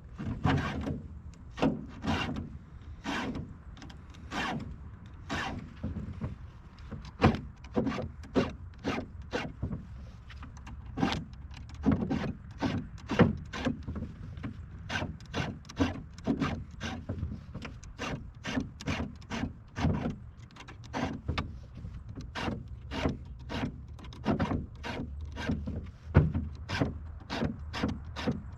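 Round chainsaw file rasping across the chain's cutter teeth in repeated short strokes, about one to two a second, in small sets (five per tooth) with brief pauses between teeth.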